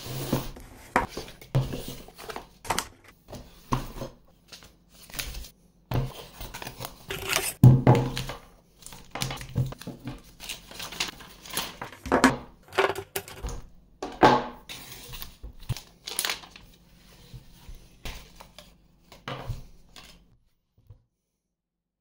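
Unboxing handling noise: packaging crinkling and rustling in irregular bursts, broken by sharp knocks and clicks of cardboard and a power brick being set down on a table. It stops shortly before the end.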